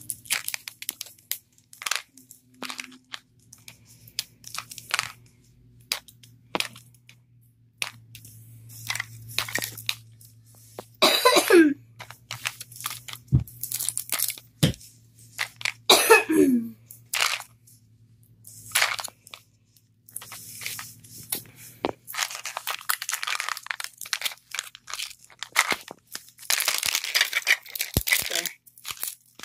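Small plastic packaging from a Mini Brands capsule being worked open by hand: scattered clicks, cracks and crinkling. Two short squeaks fall steeply in pitch partway through, and longer runs of crackling come near the end.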